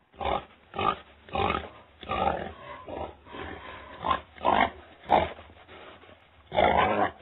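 A hog grunting: a series of about ten short, loud grunts at an uneven pace, with a longer one near the end.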